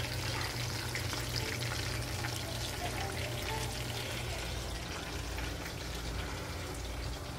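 Breaded chicken wings deep-frying in hot oil in a pan: a steady sizzle full of fine crackles, over a steady low hum.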